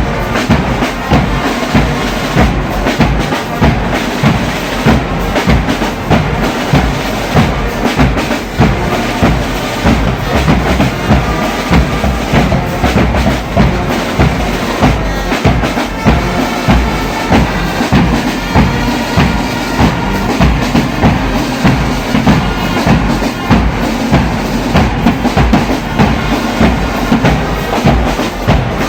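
Church brass band playing with drums, a steady bass-drum beat under held brass notes.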